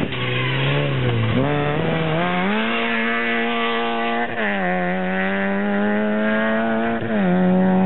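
Rally hatchback's engine driven hard through a stage. The revs dip and pick up in the first second or so, then climb and hold high. The pitch drops sharply twice, about four seconds in and near the end, as the car shifts up a gear.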